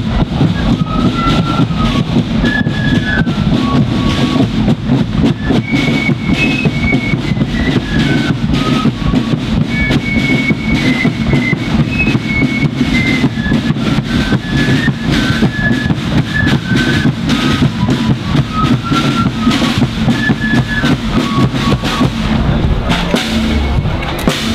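Marching flute band playing: flutes carry a stepping tune over rapid side-drum strokes and a bass drum beat.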